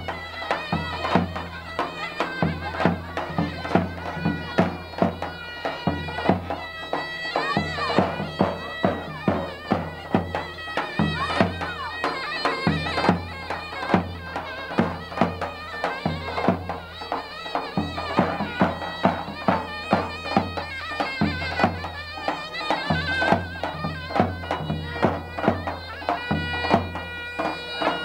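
Traditional folk dance music: a reedy wind instrument plays a wavering melody over a steady low drone and a regular drum beat.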